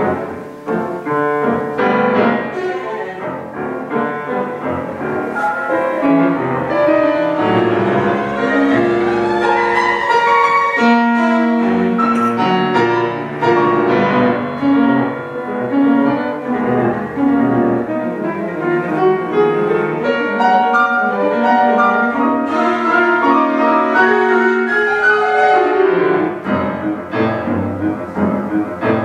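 Cello and grand piano playing a chamber piece together, with a rising passage climbing steadily about seven to ten seconds in.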